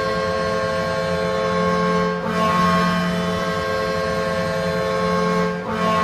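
Whitby Fury's ice-hockey goal horn blowing a loud, steady multi-tone chord in long blasts, with short breaks about two seconds in and again near the end.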